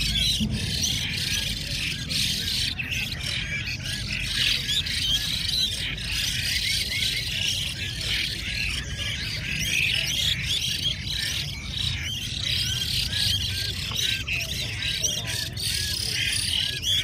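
Many caged Chinese hwameis singing at once: a dense, continuous chorus of overlapping chirps and whistles, over a low murmur of background noise.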